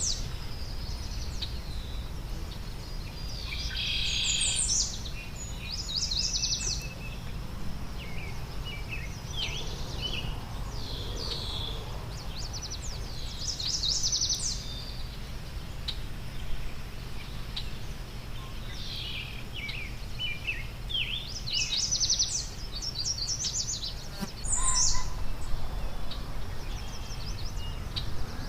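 Backyard songbirds calling and singing: repeated quick series of high chirps and trills from several birds, with a steady low rumble underneath.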